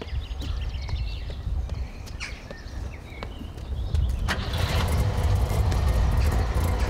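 Old car's engine running and road noise heard from inside the cabin while driving, a steady low rumble, with short high chirps over it in the first few seconds. The noise grows louder about four seconds in.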